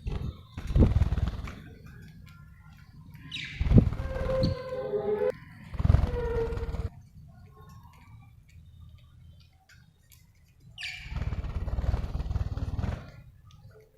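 Budgerigar chirping in short falling calls, with a little warbling in the middle. Three louder bursts of low rumbling noise run under the calls and are the loudest sound.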